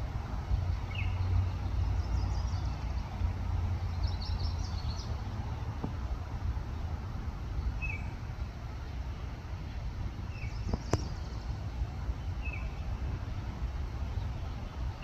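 A tiny bird calling loudly: short, sharp chirps repeated every two or three seconds, with a few quick higher twitters in between, over a steady low rumble.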